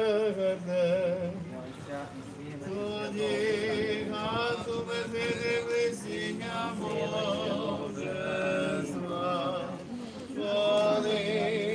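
Unaccompanied church chant sung by several voices, men's among them, in long held notes that waver slightly, phrase after phrase.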